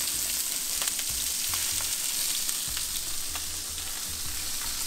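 Mahi-mahi fillet frying in a hot pan: a steady sizzling hiss with scattered faint crackles.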